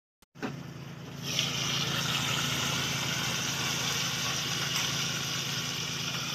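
Water boiling in an electric hot pot under its glass lid: a steady rushing hiss over a low hum, the hiss growing louder about a second in.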